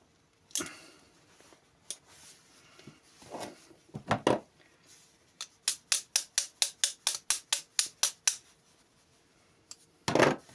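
Ratchet mechanism of an INTU-20 steel-strap tensioner being reassembled by hand: a few knocks and scrapes of metal parts, then a run of about a dozen quick, even clicks lasting some three seconds, and another knock near the end.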